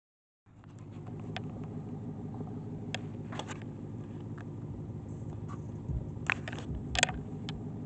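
A car engine running steadily with a low, even hum that fades in just after the start, with a few scattered clicks and knocks, the loudest about seven seconds in.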